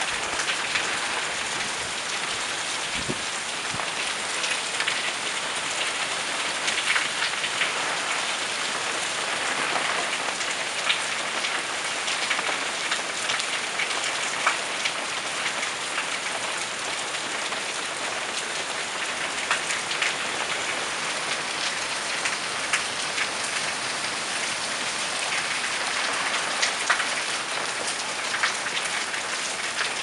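Heavy typhoon rain falling steadily as a dense hiss, with many sharp taps of individual drops striking close by.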